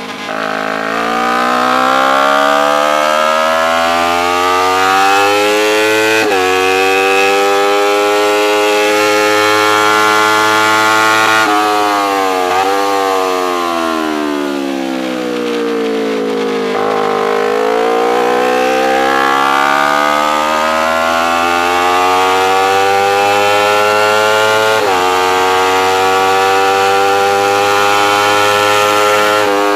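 Race motorcycle engine at high revs under hard acceleration, its pitch climbing and dropping sharply at each upshift (about 6 s and 25 s in). In the middle it falls away with a few small steps as the bike slows and downshifts, then climbs again, with wind rush over the onboard camera.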